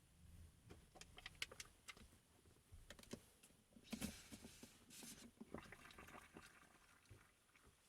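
Faint, scattered clicks, taps and rustling of things being handled, with a slightly louder noisy stretch about four to six and a half seconds in.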